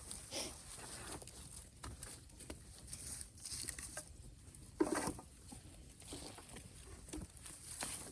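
Bamboo-and-brush bonfire crackling, with scattered small snaps and rustles and one louder crack or knock about five seconds in.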